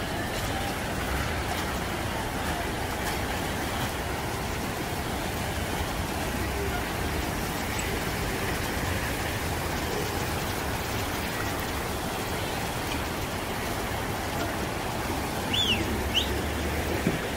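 Steady rushing of floodwater pouring across a road after heavy rain, with a couple of brief high chirps near the end.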